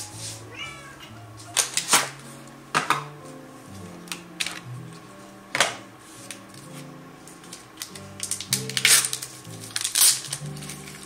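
Epson SureColor P400 inkjet printer's mechanism clacking as it feeds paper and moves the printhead carriage: a series of sharp, irregular clacks, busiest near the end.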